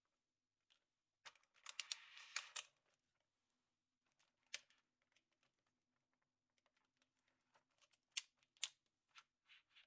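Hands handling a chocolate surprise egg: a crinkling of its foil wrapper lasting about a second and a half, then scattered small clicks and taps, two sharper ones near the end.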